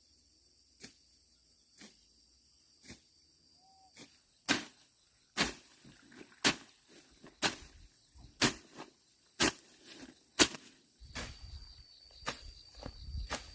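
Sharp, evenly spaced strikes about once a second, much louder from about four seconds in, over a steady high insect drone.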